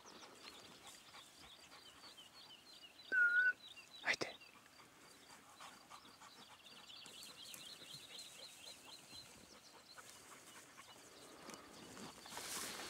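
Faint repeated high chirping in the background, one short loud whistle note about three seconds in followed by a sharp click, and rustling of tall grass with footsteps rising near the end as the walker pushes through the vegetation after the dog.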